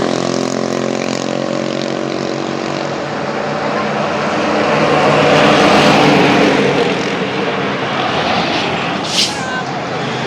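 A vehicle's engine running with a steady drone, and road noise swelling as a vehicle passes about six seconds in. A short hiss near the end.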